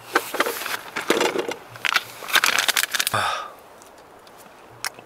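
Light clicks and taps of metal chopsticks and dishes as food is picked up and eaten, busy for about three seconds, then only a few faint clicks.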